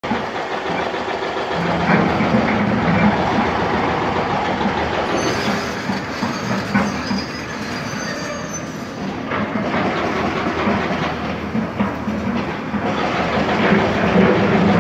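Tracked excavator working in rock: a steady diesel engine drone under scattered knocks and clanks of the bucket and steel on stone, with a faint metallic squeal in the middle.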